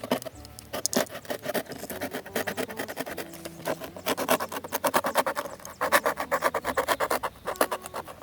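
Fast, irregular scraping and rubbing strokes, several a second, from something being worked by hand, with faint background music beneath.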